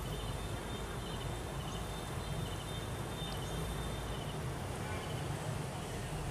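Steady outdoor background noise dominated by a low rumble, with a few faint, short high chirps.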